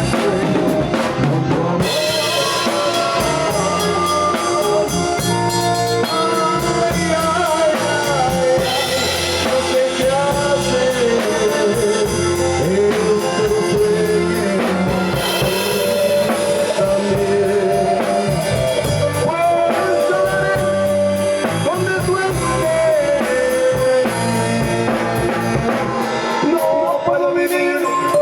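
Recorded song by a band: drum kit keeping a steady beat under guitar, with a melody line running over it.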